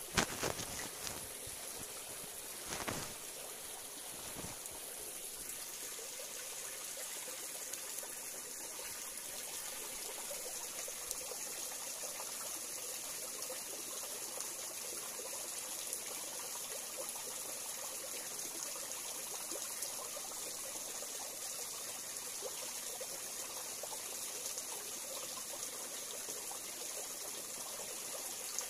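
Small forest stream trickling into a rocky pool, a steady water sound. A few short knocks in the first few seconds, the loudest right at the start.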